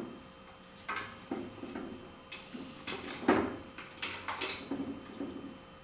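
A kitten scrambling up onto a wooden chair: irregular scrapes and knocks of its claws and paws on the wood, the loudest knock a little over three seconds in.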